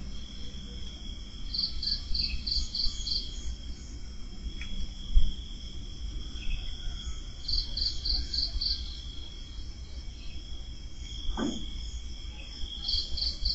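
Crickets chirping at night: one steady unbroken trill, joined three times by bursts of about six quick pulses from a second insect, over a low rumble.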